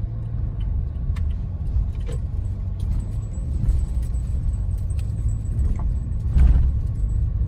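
Inside a car moving slowly: a steady low rumble of engine and tyres, with small clicks and rattles, swelling briefly about six and a half seconds in.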